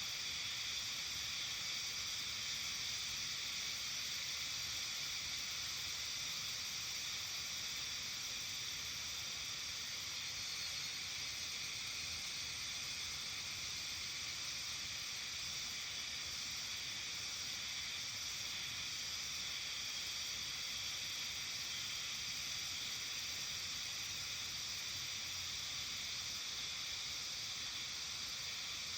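Steady evening chorus of insects, a dense even high-pitched hiss that does not change.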